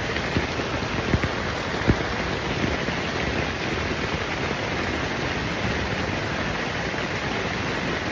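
Steady rain falling on and around a tent, heard from inside, with a few brief thuds in the first three seconds.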